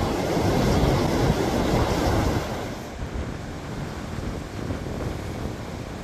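Rough sea surf breaking and washing on the shore: a loud surge for the first two and a half seconds or so that falls away to a quieter wash. Strong wind buffets the microphone.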